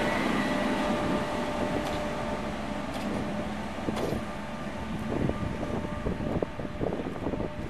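Korail 8000-class electric locomotives moving off slowly, a steady hum with several fixed tones that fades as they draw away. In the second half, wheels knock over the rail joints.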